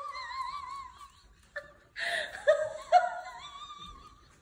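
High-pitched laughter with a wavering pitch, in two bouts with a pause of about a second between them.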